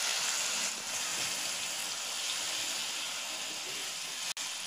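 Yogurt-marinated chicken sizzling in hot oil in a wok, just added to the pan: a steady frying hiss that eases slightly after the first second. The sound cuts out for an instant near the end.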